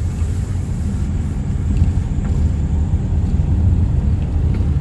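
Car driving slowly over cracked asphalt, heard from inside the cabin: a steady low rumble of engine and tyre noise, with a few faint ticks.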